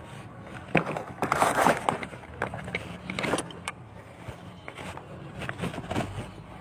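Handling noise from a phone camera being moved and set down: scattered clicks and knocks, with a burst of rustling about a second and a half in.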